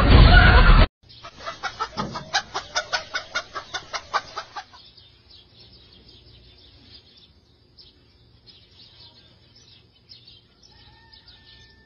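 A loud stretch of voices cuts off within the first second, then a domestic hen clucks in a quick run of about four to five clucks a second for three or four seconds before stopping.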